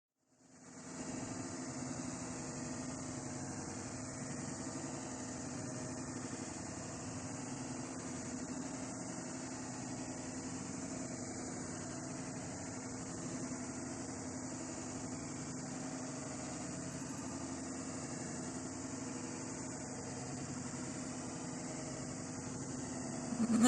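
Steady low mechanical hum with a noisy background, like an engine or motor running at idle. A loud animal bleat starts at the very end.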